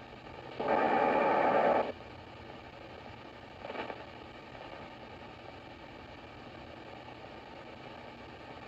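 Sony ICF-2010 shortwave receiver scanning the AM band around 27–29 MHz, giving a steady faint hiss from its speaker. About half a second in, a loud burst of noisy reception lasts just over a second, and a short weaker burst comes near four seconds.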